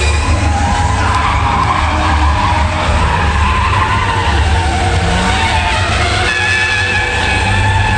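A loud, steady rumble of something moving fast, with high squealing tones that come and go, strongest in the last two seconds.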